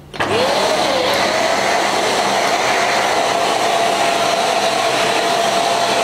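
Philips EasyGo FC8087 bagless canister vacuum cleaner switching on: the motor's whine rises in pitch as it spins up over the first second or so. It then runs at a steady pitch with a loud, even rush of air.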